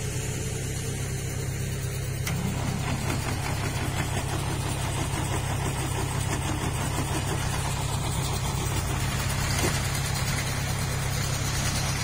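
Farm machinery engine idling steadily, a constant low hum with no change in speed.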